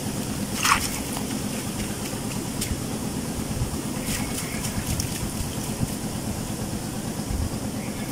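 Water splashing and dripping as a cylindrical mesh fish trap is shaken and lifted in shallow water, with a few short sharp splashes, over a steady low hum.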